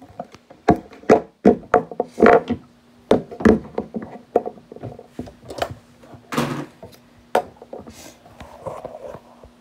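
Irregular knocks and clatters of hard objects being handled against wood, some sharp and some dull, spaced unevenly, with a faint steady hum underneath.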